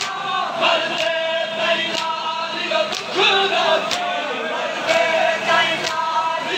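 Men chanting a noha, the Shia mourning lament, with a crowd of voices singing together. Sharp hand strikes about once a second keep time: the mourners' chest-beating (matam).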